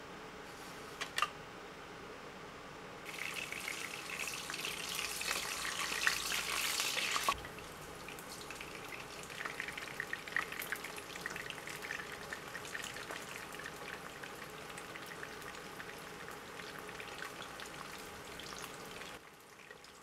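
Dough strips and small dumplings shallow-frying in oil in a pan, sizzling and crackling. A couple of light clicks about a second in, then a loud burst of sizzle about three seconds in that lasts about four seconds, settling into a steadier crackle that cuts off near the end.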